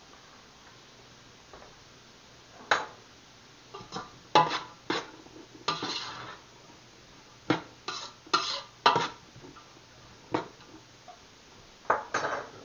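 A stirring utensil knocking and scraping against a large aluminium stock pot while onions are stirred and cooked down, with irregular sharp clanks every second or so.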